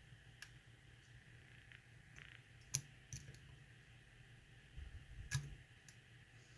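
Faint, scattered clicks of a lock pick working the pins of a six-pin tumbler lock held under tension, about five separate clicks.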